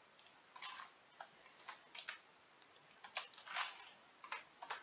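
Faint, irregular clicking of a computer mouse and keyboard, about ten clicks, as an offset value is typed into a CAD program.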